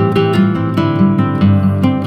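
Background music: a strummed acoustic guitar playing a steady rhythm, without singing.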